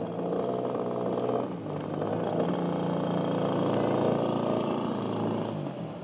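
Radio-controlled scale aerobatic plane's 3W twin-cylinder gasoline engine running, its pitch and loudness rising about a second and a half in and falling back near the end as the throttle is worked.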